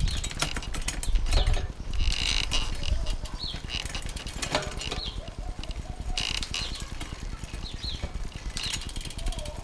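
Road-bike drivetrain (Shimano 105 5800 with an 11-40 cassette) turned by hand in a workstand: the chain runs over the sprockets with a run of clicks in the first two seconds, and the rear freehub's ratchet buzzes when the pedalling stops, around two and six seconds in. A bird chirps briefly a few times.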